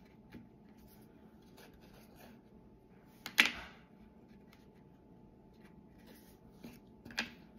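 Small craft pieces handled on a table: faint scattered light clicks, one sharp tap with a brief rustle about three and a half seconds in, and a smaller tap near the end.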